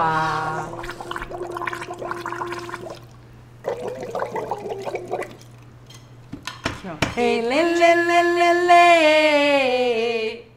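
Singer's vocal warm-up: humming a held note through a straw into a cup of water, the water bubbling. After a couple of clicks, a long sung note rises, holds and slides down near the end.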